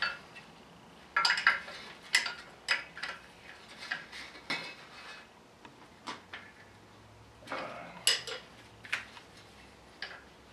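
Irregular metallic clinks and knocks as a large wrench is fitted and tapped onto the big nut of a Cummins diesel's radiator fan. There are about a dozen separate strikes, the loudest a little after one and two seconds in and again around eight seconds.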